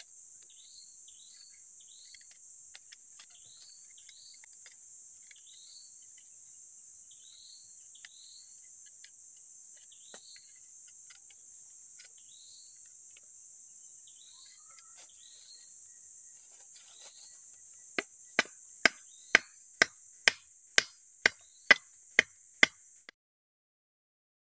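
A wooden mandau sheath struck about ten times, sharp wooden knocks about two a second, as it is knocked apart. Before the knocks there is only a steady insect hiss and short falling chirps repeating every half second or so. The sound cuts off suddenly just after the last knock.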